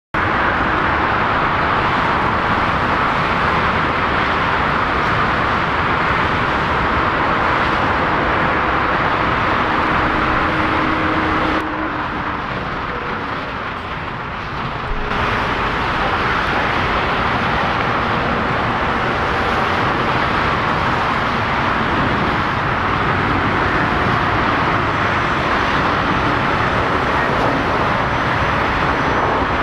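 Steady rushing jet aircraft noise on an airport apron, even and unbroken, with a faint hum beneath. It drops a little for about three seconds starting around twelve seconds in.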